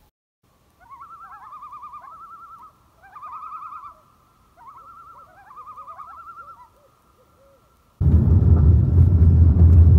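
Common loon tremolo calls: three rapid, wavering trilling phrases. About eight seconds in, a loud low rumble of a vehicle driving on a gravel road, heard from inside the cabin, takes over.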